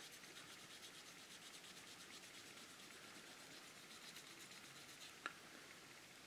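Faint rubbing of a cotton swab back and forth over the painted plastic body of a scale model car, wiping away excess semi-gloss black paint. One light click about five seconds in.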